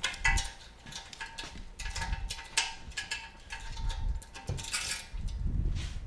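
Metal wrenches clicking and clinking against the steel bolts, nuts and frame of a screen printing press as the print station bolts are tightened, with a brief rustling scrape near the end.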